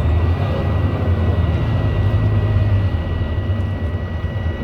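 Volvo B9TL double-decker bus heard from inside the cabin, its engine running with a steady low drone, and a constant high-pitched beep tone sounding over it. The uploader puts the beep down to something loose, like a panel, at the back of the bus.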